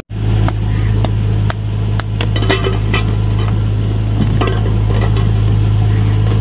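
Short metallic clinks and knocks as a curved blade is worked against a steel container packed in ice inside a polystyrene box, several separate clicks from about a second and a half in, over a steady low hum.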